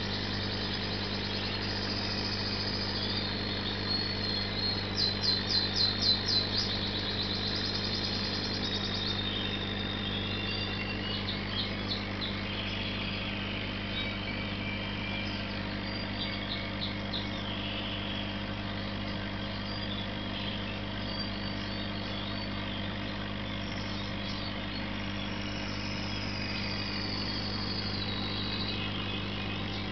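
Steady low electric hum of aquarium equipment, such as an air pump, running under scattered high bird chirps. A fast run of chirps about five seconds in is the loudest sound.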